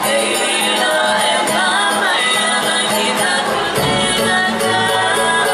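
Cook Islands drum music: a drum ensemble beating a steady, quick rhythm under group singing.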